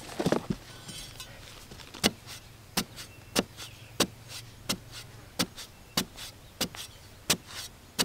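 Steel digging bar with a flat blade jabbed into hard sandy earth to cut out a small pit: sharp, evenly paced strikes, about one every two-thirds of a second, starting about two seconds in. A couple of knocks come just before them.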